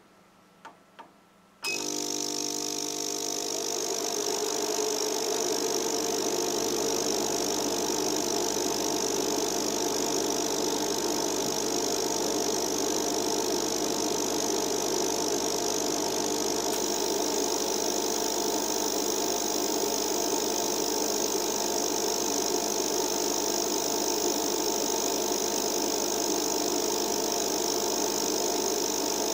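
Two button clicks on the control panel of an Itec CBT-6R ozone generator, then the machine switches on abruptly and runs with a steady whir and electrical hum, growing a little louder over the first few seconds. About halfway through, the deepest part of the hum drops out while the rest runs on unchanged.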